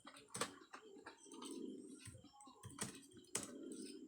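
Typing on a computer keyboard: a run of irregular keystrokes, with a few sharper key clicks standing out.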